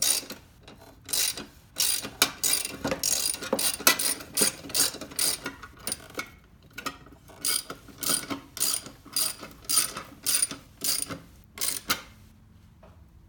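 Hand ratchet wrench clicking in quick back-and-forth strokes as a bolt or nut is worked, the clicks coming in rapid groups and stopping about a second before the end.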